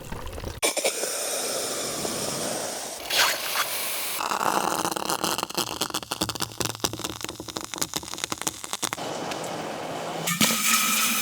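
Extreme-temperature reactions: very hot or very cold material meeting water or ice, giving dense sizzling with many sharp crackles and pops. The character changes abruptly about half a second in, about four seconds in and again near the end, as one recording gives way to the next.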